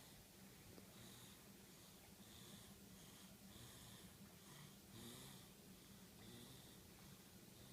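Faint wheezing snores from a sleeping person: hissy breaths recur about once a second over a steady low hum.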